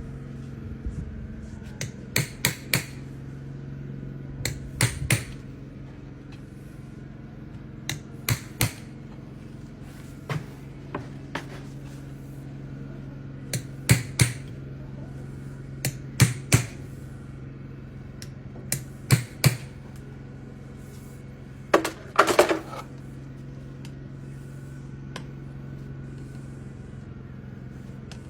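Farrier's tools working a horse's hoof: sharp clicks and snaps, mostly in pairs or threes every few seconds, with a longer run of strokes about two-thirds of the way in, over a steady low hum.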